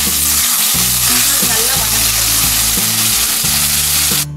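Chopped tomatoes, shallots and green chillies sizzling in hot oil in a steel kadai, freshly added and frying steadily. The sizzling cuts off just before the end.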